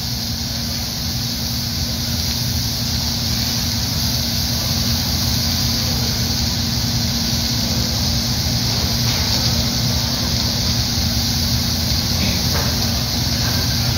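Food sizzling steadily on a hot hibachi griddle, over a constant low hum with a faint steady tone.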